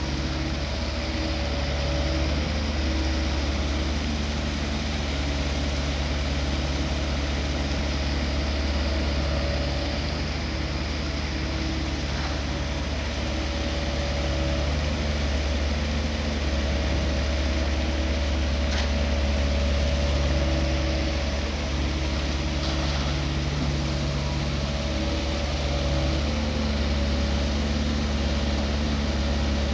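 SANY hydraulic excavator's diesel engine running steadily, its pitch shifting slightly as the machine works, over a deep low rumble.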